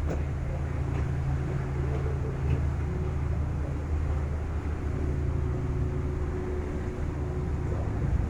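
Steady low drone of a ferry's engines, with an even hiss of wind and water over it.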